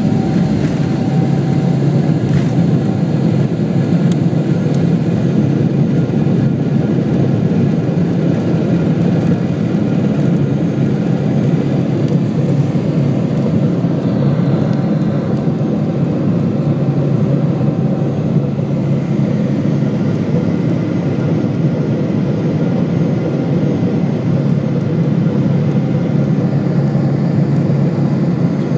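Steady, loud rumble of a Boeing 777's jet engines and airflow heard from inside the passenger cabin, with no change in level.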